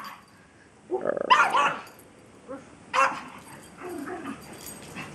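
Dogs play-fighting: a quick run of barks about a second in, a single bark around three seconds, then quieter low sounds.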